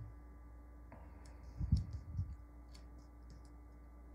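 Light handling noise from a pen and hand on paper on a desk: scattered faint clicks and a few soft low thumps about halfway through, over a steady low hum.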